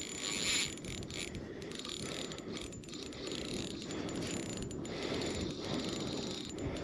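Shimano spinning reel being cranked steadily, its gears turning as line is wound in on a hooked fish.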